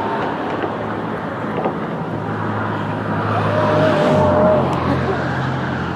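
Motor vehicle engine running with road noise; its low hum drops in pitch about four seconds in, just after a brief higher whine.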